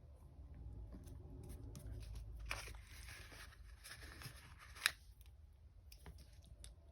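Quiet handling of planner stickers and paper: stickers being peeled and pressed onto the page, with soft rustling, light clicks and one sharper click about five seconds in.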